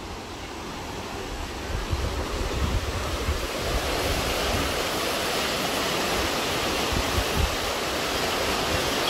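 Water rushing through a canal's sluice gates, a steady rushing noise that grows louder over the first few seconds and then holds, with wind buffeting the microphone.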